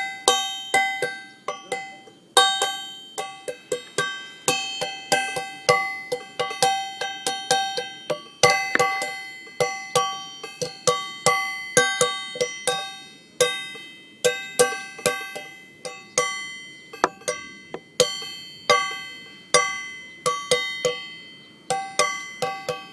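Instrumental music made of quick, sharply struck notes that each die away fast, in a steady, busy rhythm, with no vocals.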